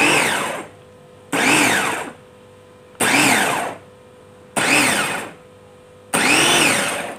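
Small electric food chopper with its motor on top of a plastic bowl, run in five short pulses about every second and a half. Each press the motor whirs up in pitch and winds back down as it is let go.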